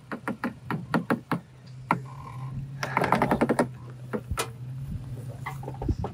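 Toyota 4Runner on 35-inch tyres crawling slowly over dirt moguls: a low, steady engine hum under a run of clicks and knocks from the tyres and chassis on the dry ground, densest about three seconds in.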